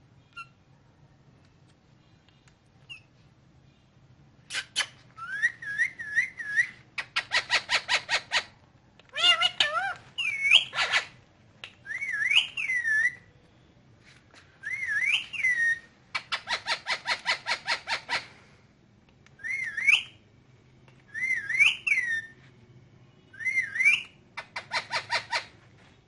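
Indian ringneck parakeet calling: short rising-and-falling whistled notes alternating with rapid runs of sharp, repeated squawks, in bouts with short pauses, starting about five seconds in.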